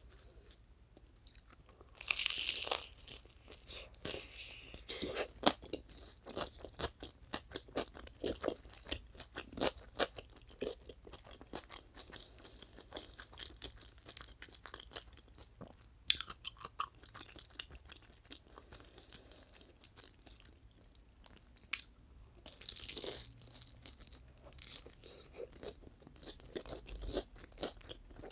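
Close-miked biting and chewing of a toasted sandwich: a few louder crunches as the toasted bread is bitten, near the start, about midway and again later, with steady clicky chewing in between.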